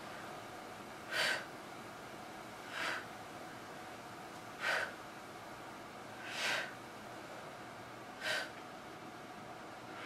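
A woman breathing hard while doing dumbbell chest presses: five short, sharp breaths, one about every two seconds, in time with the presses.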